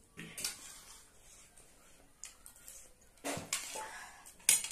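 Eating sounds: a metal spoon scraping and tapping on a plate amid chewing and sipping, with a sharp clink about four and a half seconds in.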